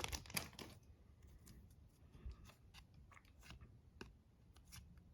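Trading cards being handled: a soft crackle fading out in the first second, then sparse faint clicks and slides as the cards are flipped one against another.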